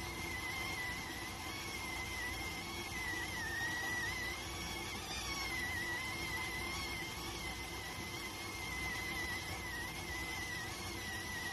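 Electric cooker's cooking whistle sounding without a break: one high, slightly wavering whistle tone over a steady hiss of steam.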